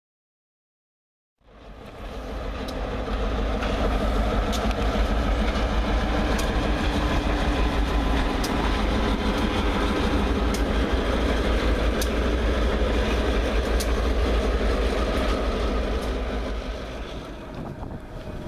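After a brief silence, two Norfolk Southern diesel locomotives fade in and run past with a steady, loud rumble, a sharp click from the wheels on the rails about every two seconds.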